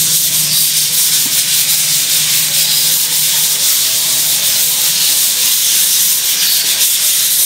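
Sandpaper rubbed by hand over a dried skim-coated concrete wall, a steady scratchy hiss of manual sanding that knocks down the small bumps left after the second skim coat.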